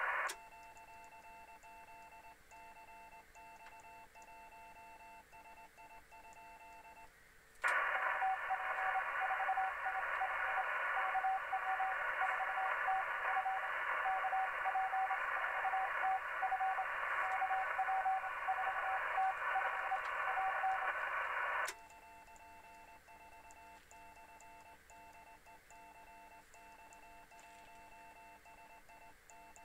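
Morse code (CW) on a 40-metre (7 MHz) amateur transceiver: a keyed tone beeping out dots and dashes, faint at first. About seven seconds in, loud receiver static comes up with a Morse tone keying through it, and about 22 seconds in it cuts off suddenly, leaving the faint keyed tone again. The heavy static is band noise on 40 metres.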